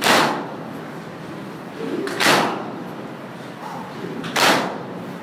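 A crowd of mourners beating their chests in unison in Bushehri-style matam: three loud, echoing slaps, one about every two seconds.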